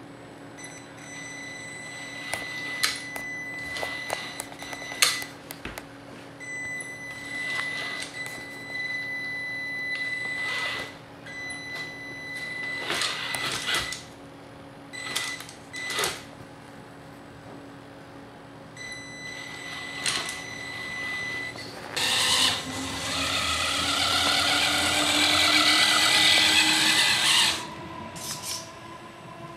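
RC rock crawler's electric drive motor and gearbox whining in short bursts, with knocks and clatter as the big tyres and chassis climb over bricks. About 22 s in comes a longer, louder run of about five seconds, its whine rising in pitch.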